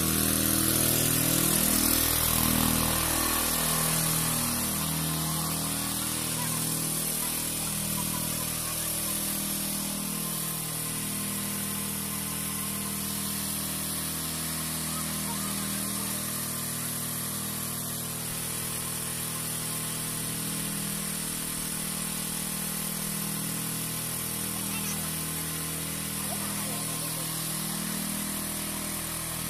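Small engine-driven water pump sets running steadily, with a wavering, throbbing note.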